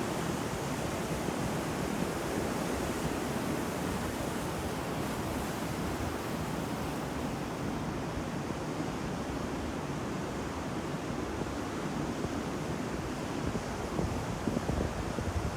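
Heavy ocean waves breaking on a shore, a continuous wash of surf with a few louder surges near the end.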